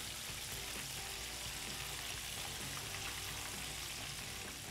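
Chicken wings deep-frying in hot oil: a steady sizzle.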